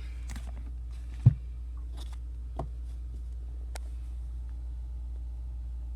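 Handling knocks: one sharp knock about a second in, followed by a few lighter clicks and taps, over a steady low hum.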